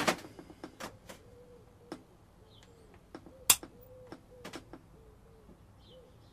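Irregular sharp clicks and taps, the loudest about three and a half seconds in, over soft cooing from a pigeon, short low notes repeated again and again.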